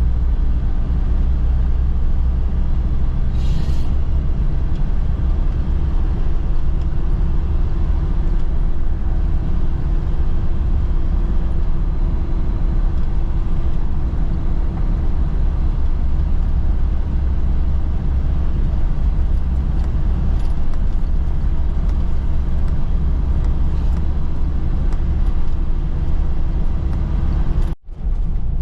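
Steady, loud rumble of a moving road vehicle: engine drone and road noise. It drops out briefly near the end.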